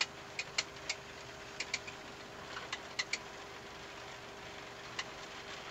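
Steady flight-deck noise of an Embraer E-Jet during the landing rollout with thrust reversers deployed, a constant hum under it. Sharp clicks and rattles come at irregular moments, several in the first second and a couple about three seconds in.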